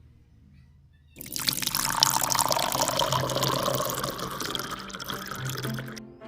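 Water pouring into a cooking pot or container, starting about a second in and stopping abruptly about five seconds later.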